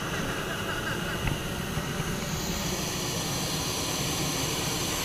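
Hot-air balloon's propane burner firing in one long, steady blast of rushing flame noise, heating the air in the envelope.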